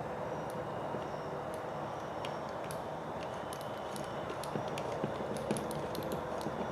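Scattered light clicks and ticks of small screws, a hand driver and plastic kit parts being handled, more frequent in the second half, over a steady room hum.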